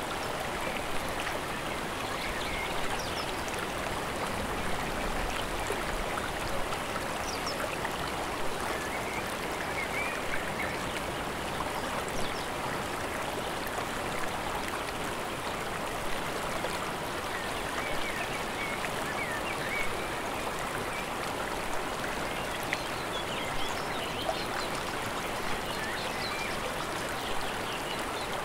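Mountain stream rushing steadily over rocks, with small splashes and gurgles now and then.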